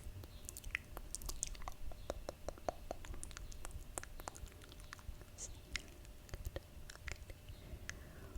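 ASMR mouth sounds: a quick, irregular run of small clicks and pops from the mouth.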